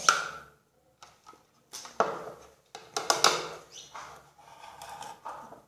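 Utensil and container handling while mixing homemade slime: a few knocks and scrapes of a spoon against a bowl, with short pauses between them.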